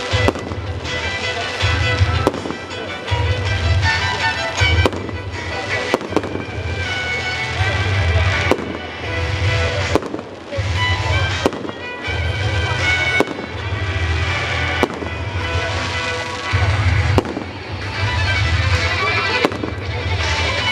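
Fireworks display: sharp firework bangs about once a second, over loud music with a pulsing bass beat.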